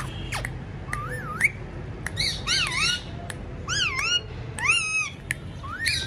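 A parakeet calling: a series of about six warbling squawks that rise and fall in pitch, with a few sharp clicks between them.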